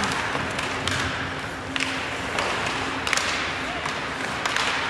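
Sounds of ice hockey play in an arena: a few sharp knocks and taps, typical of the puck and sticks striking the ice and boards, over a steady hum.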